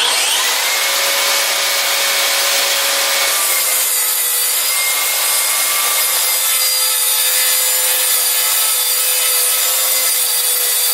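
Makita cordless track saw cutting through the full depth of a plywood sheet: a steady motor whine with the hiss of the blade in the wood, starting right at the outset and holding level throughout.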